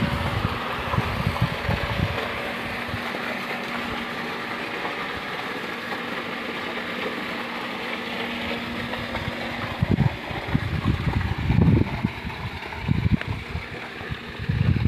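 A steady machine running, with a faint even hum under a broad rushing noise; from about ten seconds in, wind buffets the microphone in uneven gusts.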